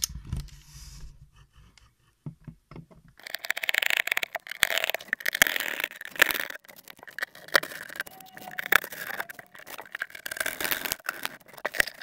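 Snap-off utility knife blade cutting through corrugated cardboard: a dense run of scratchy, rasping strokes that starts about three seconds in.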